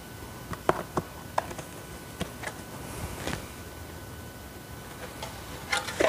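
Hard plastic clicking and knocking from a Hoover WindTunnel vacuum's clear dirt bin and filter housing as it is handled and turned: a handful of sharp clicks, the loudest under a second in and another around three seconds, over faint room tone.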